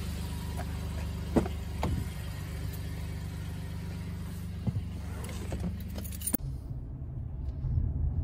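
Chevrolet Colorado pickup's engine running with a steady low hum while the driver's door is opened with a few clicks of the handle and latch. About six seconds in the door shuts with a thump, cutting off the outside hiss of rain and leaving only the engine hum heard inside the cab.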